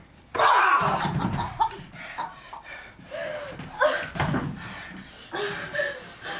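A performer's acted cries of pain: a loud yell about a third of a second in, then panting and short groans.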